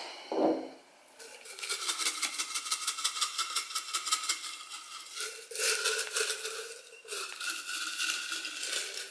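Folded paper slips being shaken in a copper-coloured glass jar: a quick, busy rattling with faint ringing from the jar, easing off briefly a couple of times.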